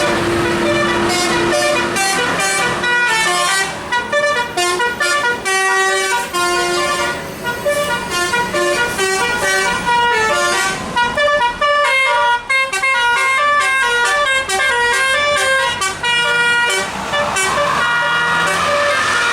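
Bus telolet horn, a set of electrically switched air-horn trumpets, playing a fast tune of short stepped notes, often several pitches sounding together. Near the end the tune stops and a rising rushing sound takes over.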